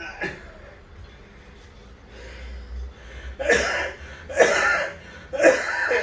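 A person making three loud, breathy vocal sounds, each under a second long, about a second apart in the second half.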